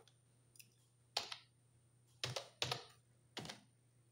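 Computer keyboard keys being pressed one at a time while typing a password: four separate, unevenly spaced keystrokes.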